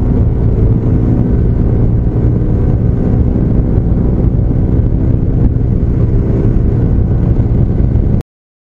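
Motorcycle engine running steadily while riding, a constant low drone with no revving, cutting off suddenly about eight seconds in.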